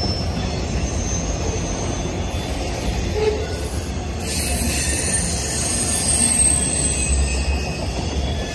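Autorack freight cars rolling past on steel rails: a steady low rumble of wheels and cars, with high, thin wheel squeal that grows stronger about four seconds in.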